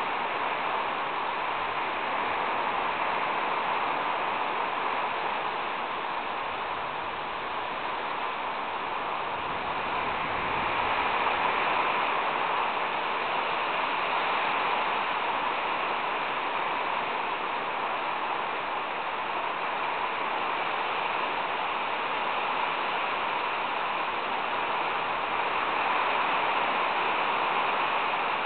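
Heavy rain pouring down steadily in gusty wind, a continuous rushing hiss that swells about ten seconds in and again near the end.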